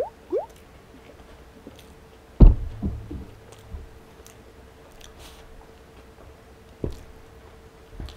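Plastic squeeze bottle of ranch dressing squirting onto fries, with two quick squelches rising in pitch right at the start. About two and a half seconds in comes a loud thump followed by a few lighter knocks, and another knock near seven seconds.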